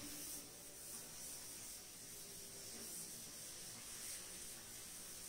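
Faint, soft rubbing of a cloth wiping chalk off a blackboard, over a steady hiss.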